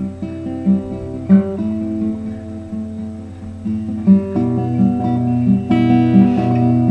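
Acoustic guitar playing a fingerpicked introduction, notes picked in a steady pattern over ringing chords.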